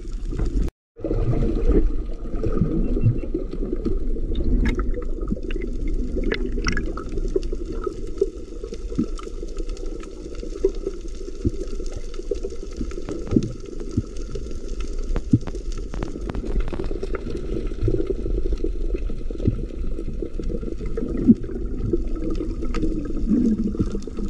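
Underwater sound picked up by a submerged camera: a steady muffled rumble of moving water with scattered small clicks. It cuts out completely for a moment about a second in.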